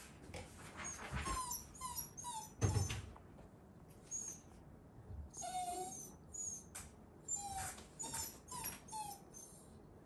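Shiba Inu whining behind a pet gate: a dozen or so short, high, squeaky whines, the dog excited and eager to greet visitors it can't reach. A single thump about three seconds in is the loudest sound.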